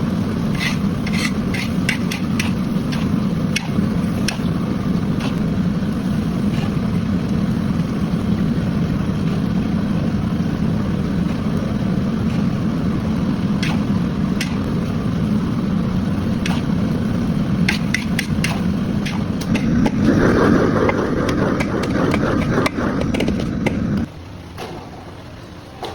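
Stir-frying rice vermicelli in a wok: a steady low roar, most likely the gas burner, with sharp clicks and scrapes of a metal spatula against the pan. The noise grows louder and brighter near the end, then drops off suddenly about 24 seconds in.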